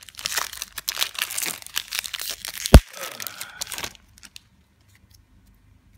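Foil wrapper of a Magic: The Gathering booster pack being torn open and crinkled by hand, with one sharp snap, the loudest sound, a little before three seconds in. The crinkling stops about four seconds in.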